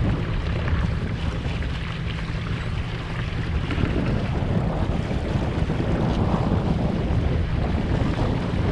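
Wind buffeting the microphone aboard a sailboat under way, with water rushing along the hull; the gusting grows a little stronger about halfway through.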